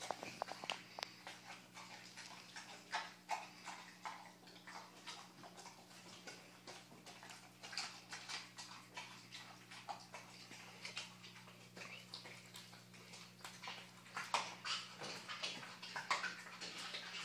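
American Staffordshire Terrier chewing a whole raw chicken: many irregular crunches and wet clicks as it bites and tears at the meat and bone, over a steady low hum.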